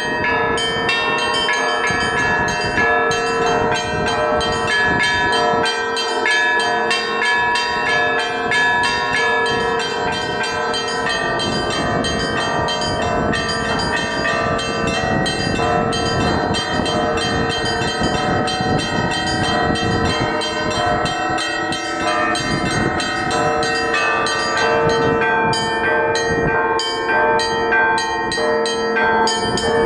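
Russian Orthodox bell ringing: a belfry's set of fixed bells of several sizes, rung by ropes on their clappers in a festive solemn peal. Many pitches ring over each other in quick, unbroken strikes.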